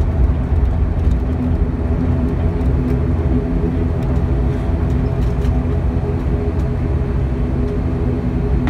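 Cabin noise of an ATR 72-600's Pratt & Whitney PW127 turboprop engine and propeller turning at low power as the aircraft rolls on the ground after landing: a steady low drone with a steady hum over it.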